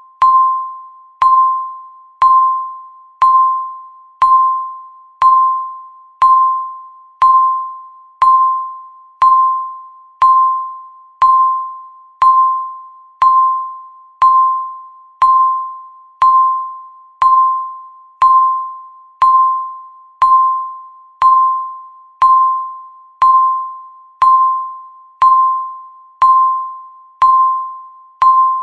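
Countdown timer's electronic ding, about once a second. Each is a single pitched tone with a sharp start that quickly dies away, repeating at an even pace.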